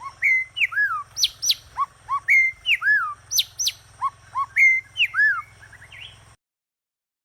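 A songbird singing the same phrase of clear, sliding whistled notes three times over, with a faint low hum underneath; the sound cuts off abruptly near the end.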